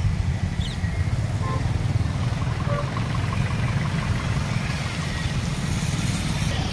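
Motorcycles and auto-rickshaws passing over a road bridge, heard as a steady low rumble with a few faint engine tones.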